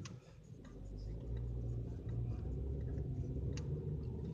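A low steady rumble that builds up within the first second, with a few faint clicks.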